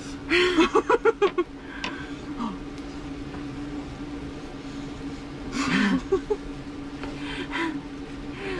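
Women giggling: a quick run of short laughs in the first second, another laugh about six seconds in, over a steady low hum.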